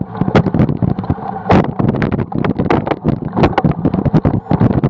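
Tyres rolling over a gravel road, with a continuous rough crackle and rumble, and wind buffeting a moving camera's microphone.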